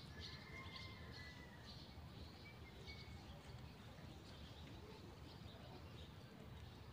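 Near silence: faint outdoor background noise with a few faint, high bird chirps in the first three seconds, one of them drawn out for about a second and a half.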